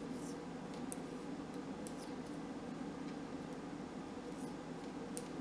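Knitting needles clicking lightly against each other as stitches are worked, a few scattered ticks about a second apart, over a steady low hum.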